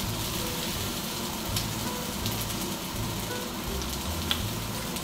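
Toothpick beef frying in a pan of oil: a steady sizzling hiss with scattered small crackles. Background music with a low, regular beat runs under it.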